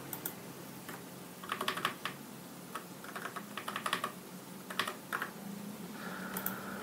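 Typing on a computer keyboard in several short bursts of key clicks with pauses between them, over a faint steady hum.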